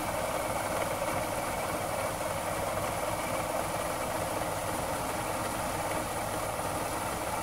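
Yamaha 60 hp outboard motor from 2001 idling steadily while its carburettor air mixture is being adjusted.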